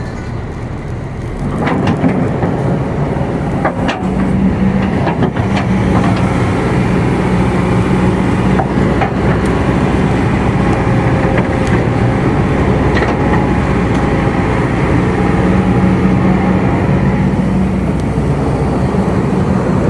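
Excavator's diesel engine running steadily under load as it digs and loads soil, growing louder about a second and a half in, with a few sharp knocks in the first half.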